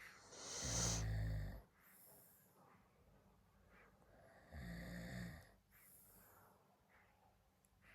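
Snoring: two loud snores about four seconds apart, with quieter breathing in between.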